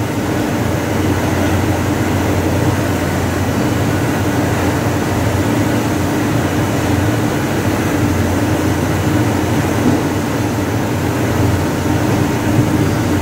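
Steady machine hum with a low drone and a faint higher steady tone, unchanging throughout.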